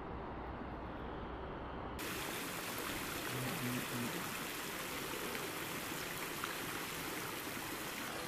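Steady rushing of running water, cutting in abruptly about two seconds in after a low hum.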